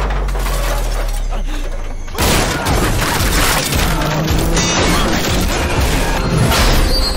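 Sound effects of a body smashing through a subway train car: metal and glass crashing and shattering, starting suddenly about two seconds in, over dramatic music.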